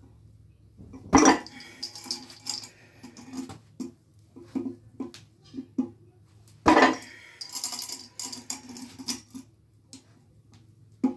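Weight plates on a loading pin clanking, with the steel chains of the grip handle jingling: two loud clanks, about a second in and again past the middle, each followed by a chain rattle, and lighter knocks between as the load is lifted and set down.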